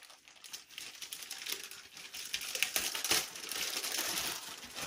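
Plastic packaging crinkling and hard plastic kit parts clicking and clattering as a radio-control car's tub chassis is unpacked, busiest in the second half.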